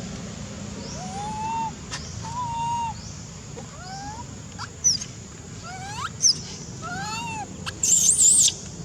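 Monkeys calling: a string of short coos that rise and fall, about one a second, with sharp high squeaks around the middle and a loud, shrill warbling squeal near the end.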